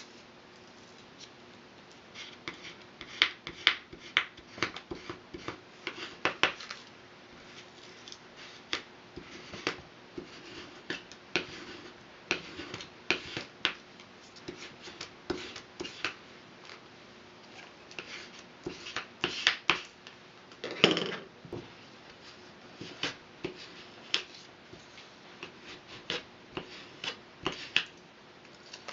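A plastic scraper drawn again and again along a fresh green barley straw on a marble board, flattening it: irregular short scratchy strokes, with one louder, longer stroke about two-thirds of the way through.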